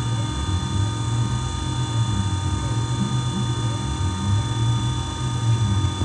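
Tormach 440 CNC mill running through a slow helical plunge: a steady spindle whine with a low hum underneath, and the axis motors sweeping up and down in pitch about once a second as the tool spirals down.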